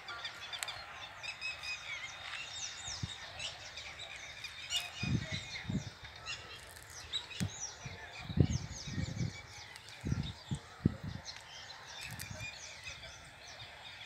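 Birds chirping and calling: many short, high chirps and some harsher calls scattered throughout, with a few low thumps around five seconds in and again between eight and eleven seconds.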